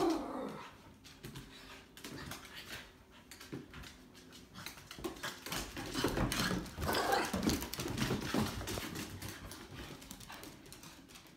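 Two dogs, a boxer-lab mix puppy and a cairn terrier mix, playing rough: a short falling whine at the start, then scuffling, panting and claws clicking on a hardwood floor, busiest in the middle.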